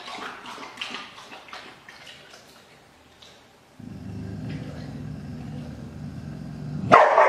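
A golden retriever lapping water from a plastic bowl, a run of quick wet clicks and splashes. This gives way to a low steady rumble for about three seconds, and about seven seconds in a sudden loud snarling bark breaks out as the dog wheels round on a tiger cub.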